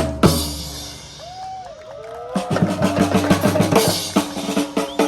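Background music with a drum-kit beat. The drums drop out shortly after the start, leaving a quieter stretch with a few gliding tones, and the beat comes back about two and a half seconds in.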